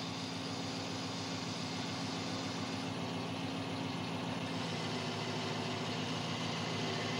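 Truck engine running steadily as it drives a self-loading log loader's crane swinging a log.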